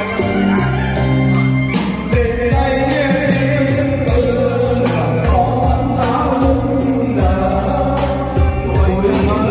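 A song with singing over a steady drum beat, played back through a karaoke loudspeaker.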